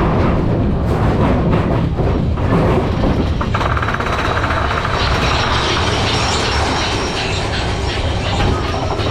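Mine train roller coaster cars running along the track: a steady low rumble with clattering wheels, and a busier, higher rattle that joins about three and a half seconds in.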